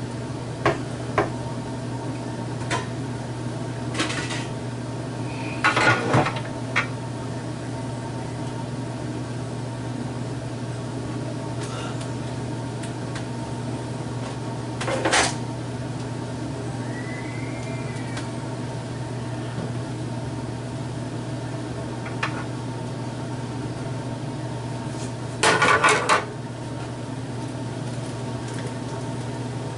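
Plastic kitchenware clattering and knocking as it is handled and set down on a gas stovetop, in scattered knocks with two louder bursts of clatter, over a steady low hum.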